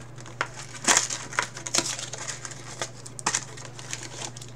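Foil trading-card pack wrapper being torn open and crumpled in the hand, in short irregular crackles.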